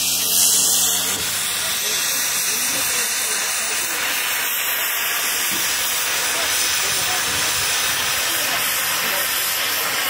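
Steam hissing steadily from the Mikado 2-8-2 steam locomotive standing at rest. A low steady hum underneath stops about a second in.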